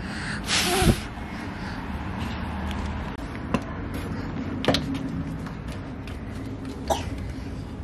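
A toddler climbing into a car through the open rear door: a few sharp knocks and clicks on the door sill and seat over a steady low hum, with a short noisy rush about half a second in.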